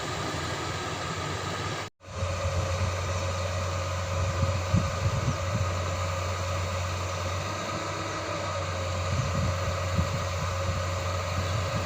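Excavator diesel engine running steadily under heavy load while lifting a concrete well casting, with a brief break in the sound about two seconds in.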